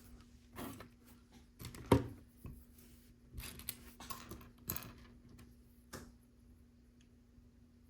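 Plastic LEGO pieces clicking and rustling as they are handled, a string of irregular light clicks with the sharpest about two seconds in, over a faint steady hum.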